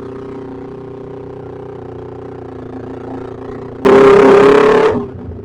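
Motorcycle engine idling steadily, then a sharp throttle blip almost four seconds in: about a second of very loud, rasping exhaust before it drops back to idle.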